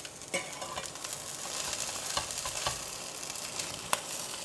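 Saba mackerel fillets sizzling on baking paper in a hot grill pan, with a few sharp clicks and scrapes from a metal spatula and silicone turner as the fillets are turned; the loudest click comes near the end.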